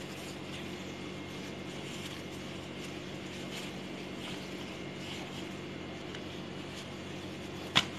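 Steady low background hum with a single sharp click near the end.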